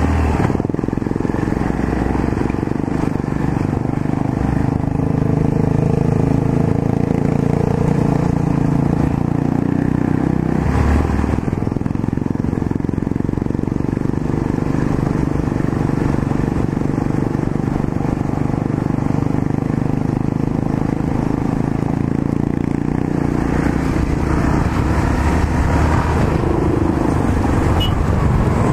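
Yamaha XT660Z Ténéré's single-cylinder four-stroke engine running steadily while the motorcycle is ridden, with a brief change about eleven seconds in.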